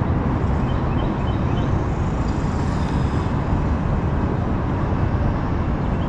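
Steady low rumbling noise with no speech, with a few faint short high chirps about a second in.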